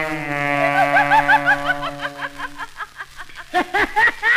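A dance band on a 1928 novelty record holds a chord, then a slide trombone 'laughs' in quick rising and falling slurs, ha-ha-ha. The laughing comes in about a second in and returns louder near the end.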